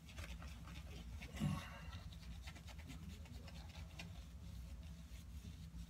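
Shaving brush swirling on shaving soap to build lather: a faint, rapid scrubbing, with one brief louder sound about a second and a half in.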